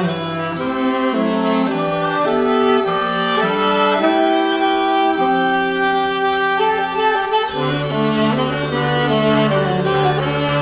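Live ensemble music: a saxophone quartet and Northumbrian smallpipes playing slow sustained chords. A low steady note comes in about three-quarters of the way through.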